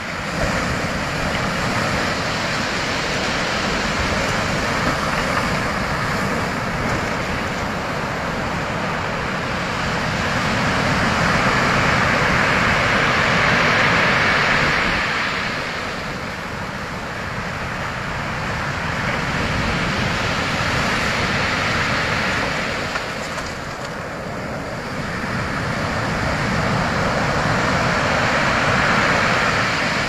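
Sea surf breaking and washing over a shingle beach, a steady rush that swells and eases three times, each surge several seconds long.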